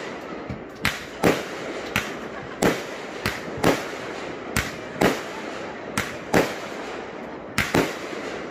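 Aerial fireworks display: a rapid string of about a dozen sharp bangs, half a second to a second apart, as shells launch and burst.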